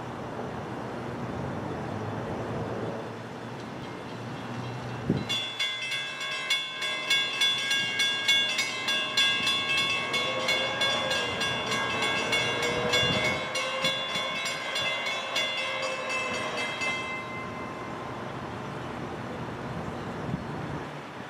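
Railroad grade-crossing bell ringing in fast, even metallic strikes, starting about five seconds in and stopping about twelve seconds later, as the crossing is activated for an approaching train. Before and after it there is a steady low background rumble.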